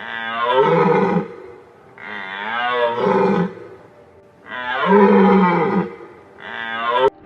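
An animal giving four loud, harsh calls, each lasting about one to one and a half seconds, with short pauses between them.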